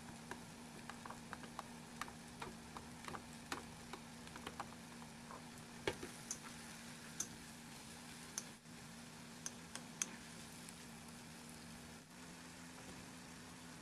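Chicken and sliced onion being stir-fried in a wok, a steady low sizzle with irregular light clicks and taps of a wooden spatula against the pan as the food is turned. A steady low hum runs underneath.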